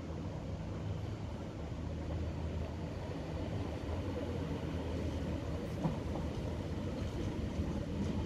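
Diesel multiple unit approaching a station, its engines giving a steady low drone that slowly grows louder.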